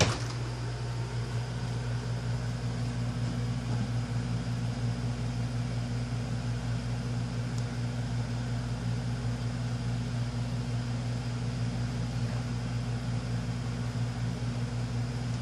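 A click right at the start as the Hunter Infiniti 52-inch ceiling fan is switched to its low speed, then the fan running steadily with a motor hum.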